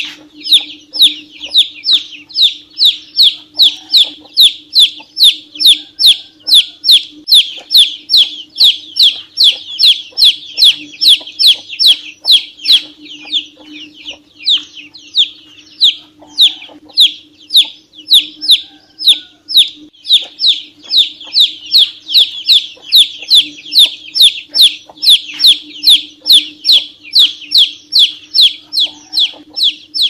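Domestic chicken chick peeping loudly and insistently: a steady string of short, high-pitched peeps, about two or three a second, each sliding down in pitch.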